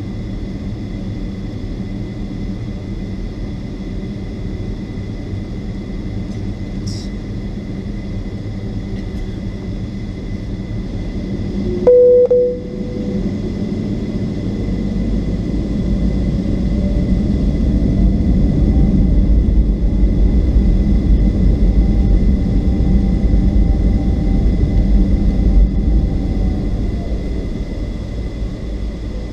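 Boeing 757-200's Rolls-Royce RB211 turbofans heard from inside the cabin during taxi, a steady low rumble. About halfway through there is a brief loud single tone; then the engines spool up with a rising whine and a louder rumble, and ease back near the end.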